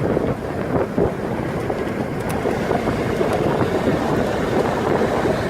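Steady road and wind noise of a car driving.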